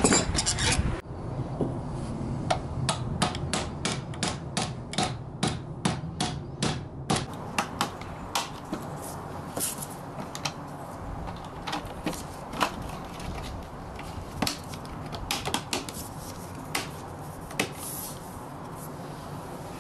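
Light hammer taps on a wooden dowel, driving metal axle caps onto the axles of a restored Tonka toy Jeepster: a quick run of even taps, about three a second, for several seconds. Then sparser, irregular clicks and knocks as the wheels are fitted.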